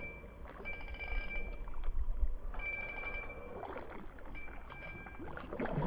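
Water sloshing and splashing as a largemouth bass swirls at the surface around a live bream bait under a bobber, with heavier splashing near the end. A high, steady tone recurs in short stretches throughout.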